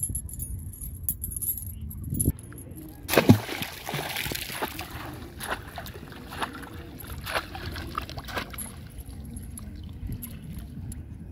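A thrown bait rig with a float lands in river water with a splash about three seconds in, followed by water sloshing and scattered short clicks, like chain links rattling as the chain runs into the water.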